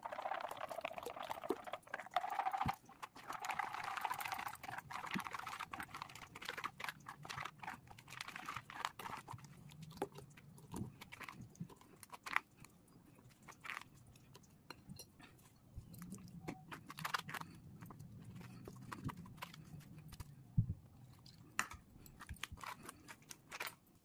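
Silicone spatula pressing and scraping thick blended black grape pulp through a stainless steel mesh strainer: a wet, rasping swish for the first several seconds, then fainter, with scattered sharp clicks and taps.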